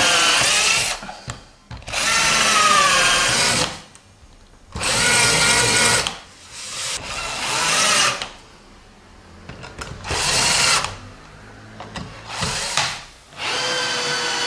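Cordless drill drilling pilot holes into a wooden board, running in about six short bursts of up to two seconds each with pauses between them. The motor's whine shifts in pitch as the bit bites, then winds down as the trigger is released.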